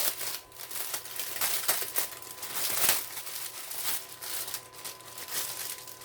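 Small plastic bags of diamond painting drills being handled, crinkling in irregular rustles.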